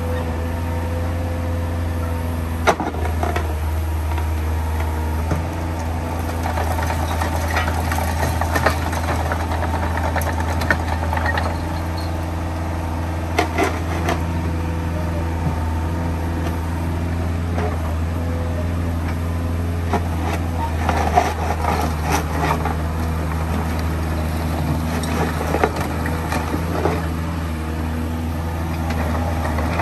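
Kubota KX-033 mini excavator's diesel engine running steadily, with scattered sharp knocks and clunks from the machine now and then.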